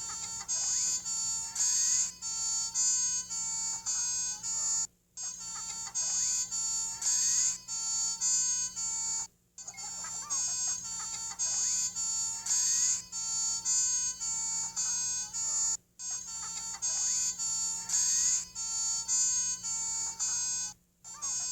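Subaru STI car alarm siren sounding: an electronic siren cycling through several patterns of rising whoops and alternating two-note beeps. The cycle repeats with a brief silent break every four to six seconds.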